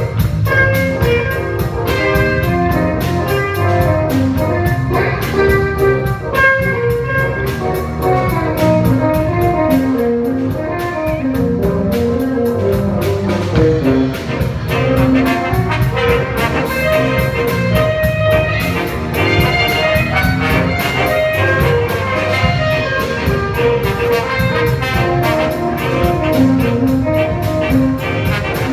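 Instrumental music: brass instruments playing a melody over a steady drum beat, in a jazz style.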